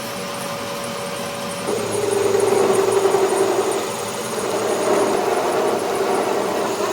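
A machine running steadily, getting louder with a stronger hum from about two seconds in.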